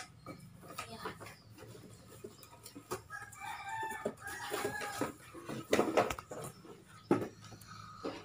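A rooster crowing once in the background, a wavering call of about a second and a half, from about three seconds in. Around it come scattered knocks and rustling from headset boxes being handled and opened.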